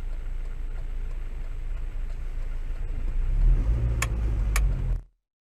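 Low, steady car engine rumble recorded by a dashcam, swelling a little after halfway as a car passes. Two sharp clicks come about four seconds in, then the sound cuts off suddenly.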